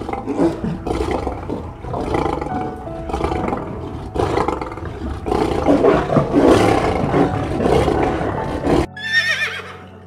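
A large animal's harsh, noisy calls over steady background music, loudest around six to seven seconds in. The calls cut off abruptly near the end, and a horse's high, falling whinny begins.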